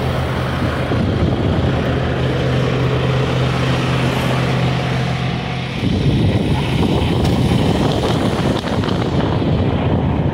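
Semi-truck's diesel engine idling, a steady low hum. About six seconds in, the hum gives way to a louder, rough, noisy rumble.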